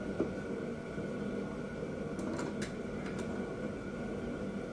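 Steady hum of a fan or similar running machine, with a few faint clicks as a thread die is turned by hand with channel-lock pliers on a Predator 212 crankshaft's flywheel-end threads.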